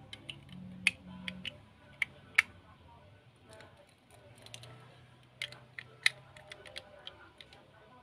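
Small sharp clicks and taps of a Hot Wheels diecast car's metal body and plastic interior and chassis being handled and pressed together. There are several clicks in the first couple of seconds and another run in the second half. Faint background music lies under them.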